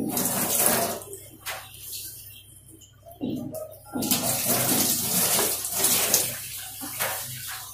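Water running and splashing in two spells, a short one at the start and a longer one of about three seconds past the middle.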